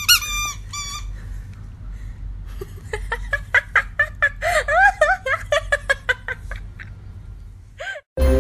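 A squeaky dog toy squeaking again and again as a puppy chews it: a few high squeaks at the start, then a fast run of short squeaks from about three seconds in.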